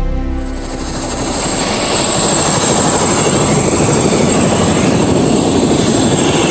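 Eurocopter helicopter running on the ground with its rotor turning: a steady high turbine whine over the rapid chop of the main rotor. It grows louder over the first second or two, then holds steady.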